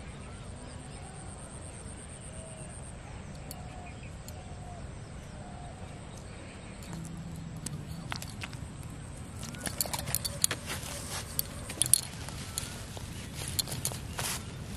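Faint outdoor background with a thin steady high tone. From about a third of the way in, close handling noise builds: a quick run of sharp clicks and rustles from hands working right by the microphone, with bangles clinking.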